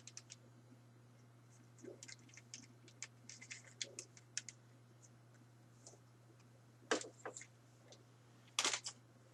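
Light clicks and taps of plastic action figures being handled and moved, with a couple of louder knocks around seven seconds in and near the end, over a low steady hum.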